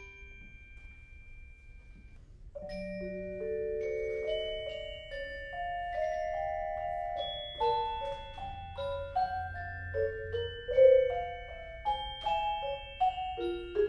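Mallet percussion ensemble of glockenspiel, xylophone, vibraphone and marimba playing. A held note fades into a short lull. About two and a half seconds in, the playing resumes with long ringing notes under quicker struck figures.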